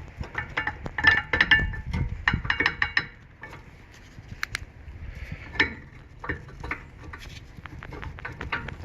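Metal-on-metal clinking and rattling as a BMW rear brake caliper is worked loose and lifted off the rotor, many quick ringing clinks for about three seconds, then scattered quieter knocks.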